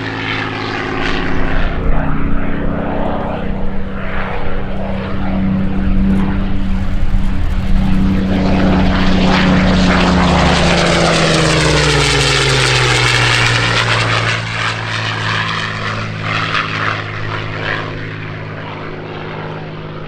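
Supermarine Spitfire Vc's Rolls-Royce Merlin V12 engine making a flypast. The engine note grows louder, passes by about halfway through with its pitch falling, then fades away.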